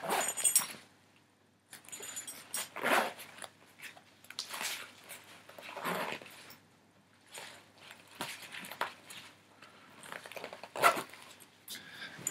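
Fabric and straps of a military-style pouch vest rustling and scraping as it is handled and adjusted, in irregular bursts every second or two, with a light metallic clink of a buckle near the start.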